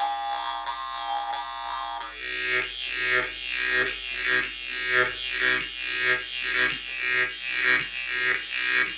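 Khomus (Yakut jaw harp) being played: a buzzing drone with shifting overtones, which about two seconds in turns into a steady rhythmic strumming of about two strokes a second.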